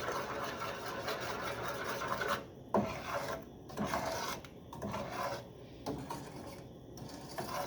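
Spoon scraping around the bottom of a pot, stirring melting butter, sugar and evaporated milk over the heat, in steady strokes about once a second.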